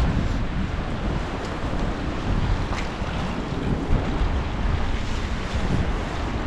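Strong gusty wind buffeting the microphone: a continuous, uneven low rumble.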